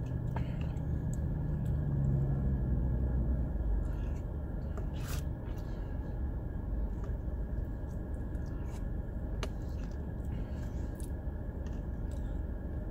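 Steady low hum inside a parked car's cabin, from the idling engine and the air conditioning, with scattered faint clicks and rustles of someone eating.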